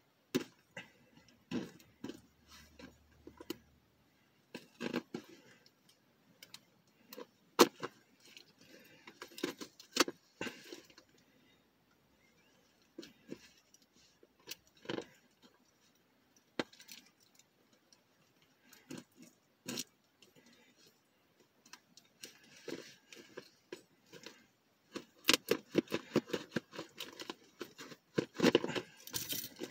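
Hands working at a shipping package tied up tight: scattered clicks, taps and rustles of packaging, with quiet gaps between them, getting busier and louder in the last few seconds.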